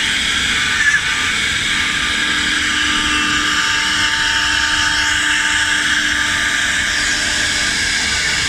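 Swing-head 4-axis CNC wood router running, its spindle giving a steady whine over a constant machining noise, with a brief sharp click about a second in.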